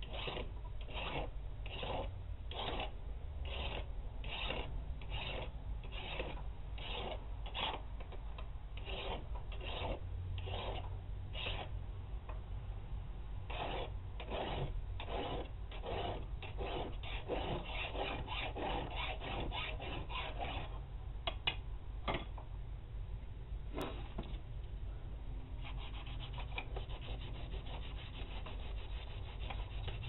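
Hand file scraping across the spine of a steel balisong knife blade, cutting rope-pattern filework: even strokes about two a second, quickening to three or four a second for several seconds before stopping. Near the end there is a steady, softer rubbing on the blade.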